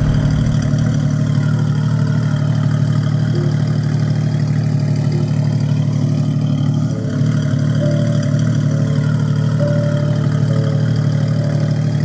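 Porsche 992 GT3's 4.0-litre flat-six idling steadily through a Tubi Style aftermarket exhaust, a deep, even note with no revving.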